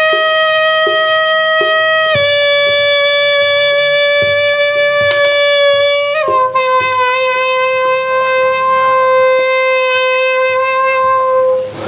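A wind instrument holds three long notes, each a step lower than the last: the first changes about two seconds in and the last about six seconds in, held until just before the end. Soft knocks keep a steady beat underneath, roughly one every three-quarters of a second.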